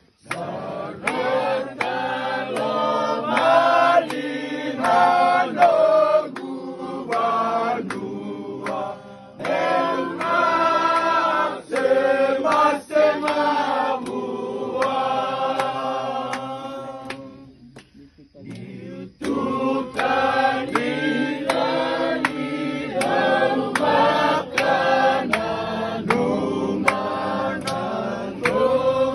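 A group of voices singing together over a steady beat of sharp taps, with a short break about two-thirds of the way through before the singing picks up again.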